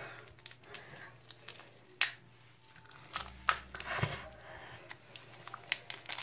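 Hands handling a bath bomb and its wrapping: faint, scattered crinkles and clicks, a little busier around the middle.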